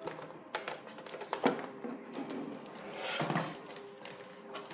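Clicks and knocks of a BenQ LCD monitor being tilted and handled while cables are plugged into its back, with a sharp knock about a second and a half in and a longer scraping sound a little past three seconds. A faint steady hum runs underneath.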